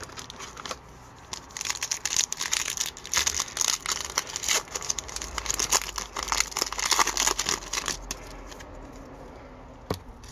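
Plastic wrapper of an Upper Deck hockey card pack being torn open and crinkled by hand: a dense crackling from about a second and a half in that dies down near the end, followed by one light click.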